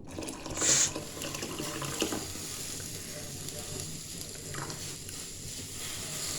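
Thin dal water poured into a pot of simmering rasam: a short splash about a second in and a light knock, then a steady bubbling hiss from the pot.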